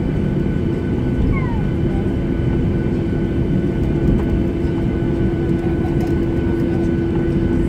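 Cabin noise inside a Boeing 737-800 taxiing: a steady rumble from its CFM56 jet engines at taxi idle, with a steady hum over it.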